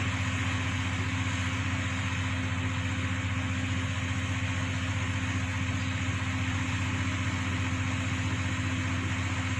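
Crane truck's engine running steadily at idle, a continuous low drone.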